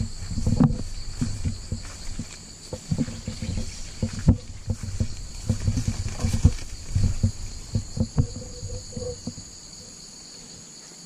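Footsteps and rustling as people walk through undergrowth on a forest path, over a steady high insect drone. The steps thin out and grow quieter near the end.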